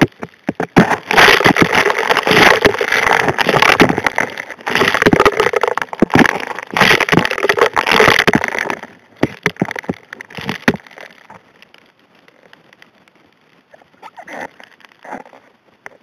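Gravel and rocks clattering against each other and the nozzle as a hand gold dredge's suction nozzle sucks them up, heard underwater as dense rapid clicking and knocking. Partway through it thins to scattered clicks and goes much quieter for a few seconds, then a few short bursts of rattling come near the end.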